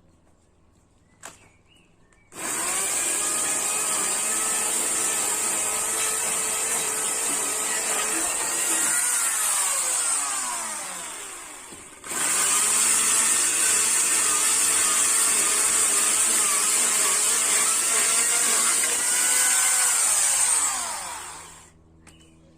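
A chainsaw running at full speed in two long bursts. Each burst starts abruptly and ends with the motor's pitch falling as it winds down, the second beginning right as the first dies away. A small click comes about a second before the first burst.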